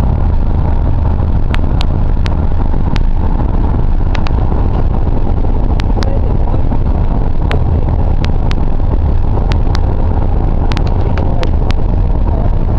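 Steady cabin noise of a moving car, a loud low rumble of road and engine, with a dozen or so short sharp clicks at irregular moments.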